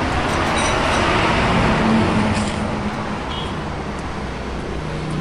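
Steady road traffic noise with the hum of passing motor vehicle engines, briefly louder about two seconds in.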